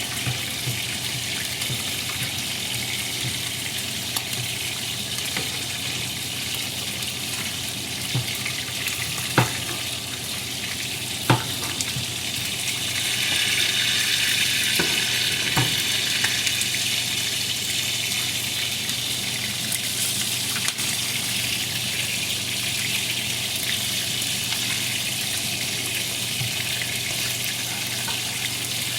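Chicken drumsticks sizzling as they pan-fry in oil, a steady hiss that grows louder about halfway through. Two sharp clicks, like a utensil knocking the pan, come about a third of the way in.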